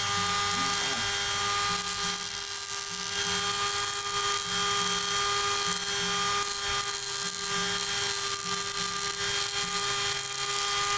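NRT-PRO 903HD mini grinder motor running at a steady speed with an even whine, turning a pink grinding-stone bit in its flexible-shaft handpiece. The bit is pressed against a rock, grinding it.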